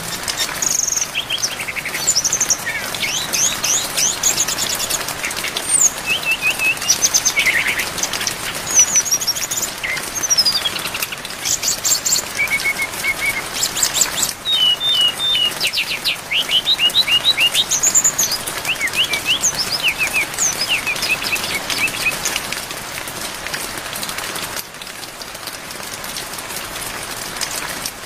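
Brown-chested jungle flycatcher (SRDC) singing a fast, varied song of short whistles, trills and chirps over a steady hiss of rain. The singing stops about three-quarters of the way through, leaving only the rain.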